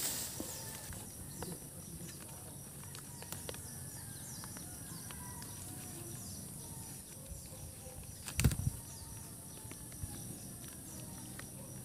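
Rural outdoor ambience: a steady high hiss with faint bird chirps and scattered light clicks, and one short thump about eight and a half seconds in.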